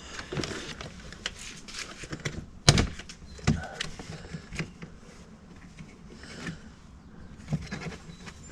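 Scattered clicks, rustles and knocks from wiring and plastic interior trim being handled, as a gauge cable is fed through the truck's trim. One louder knock comes a little under three seconds in.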